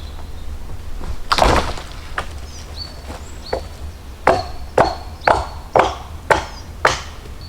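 Axe chopping wood: one heavy blow about a second and a half in, then from about four seconds in a steady run of sharp strikes, about two a second.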